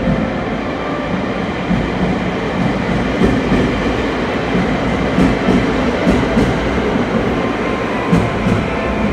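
A 521 series electric train pulling into the platform and slowing, with a steady rumble and the clack of its wheels over rail joints, often in pairs, loudest through the middle as the cars pass close by.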